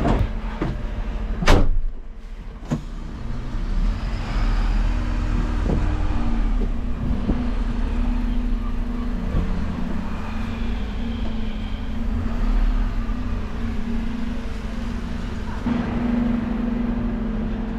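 A loud knock about a second and a half in, then the steady running of a Dennis Eagle Elite refuse truck's diesel engine as the truck drives off and pulls up.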